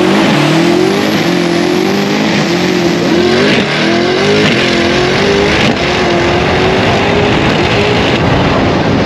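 Twin-turbocharged, custom-built LT2 V8 of a C8 Corvette at full throttle on a drag-strip pass. Its pitch climbs and drops back several times as the dual-clutch gearbox shifts up through the gears.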